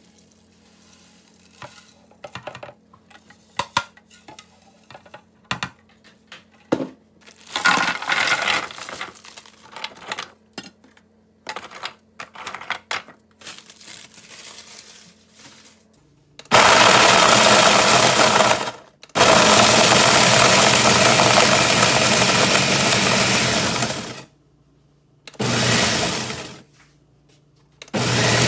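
Countertop blender grinding whole biscuits into fine crumbs, run in four goes: about two and a half seconds, a longer run of about five seconds, then two short pulses. Before it starts there are light scrapes and clinks as ground coffee is scooped into a glass jar.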